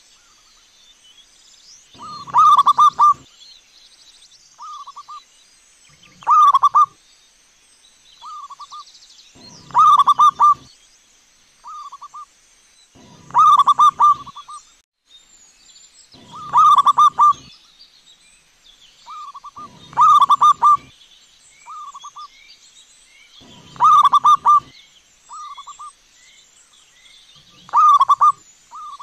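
Zebra dove (perkutut) cooing. About eight loud phrases of quick rolling coos come at an even pace, roughly every three and a half to four seconds, each with a shorter single coo between them.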